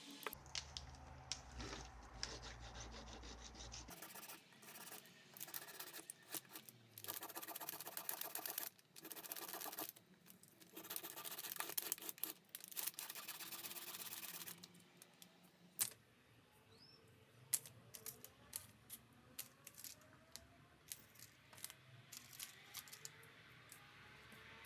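Rubbing and scraping strokes against a hard surface, in repeated spells of about a second or more, followed near the end by scattered light clicks and taps.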